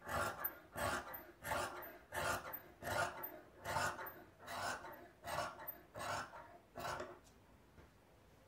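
Large steel tailor's shears cutting through fabric on a table: about ten rasping snips, a little more than one a second, stopping about seven seconds in.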